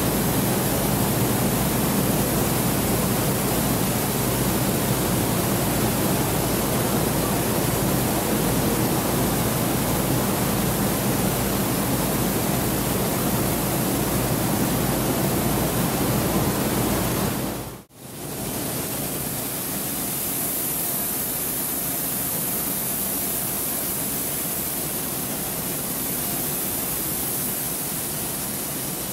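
Steady din of coffee-bean grading machinery: vibrating sieve graders shaking beans across mesh screens, with a low hum under the noise. The sound breaks off for a moment about two-thirds of the way through and comes back slightly quieter.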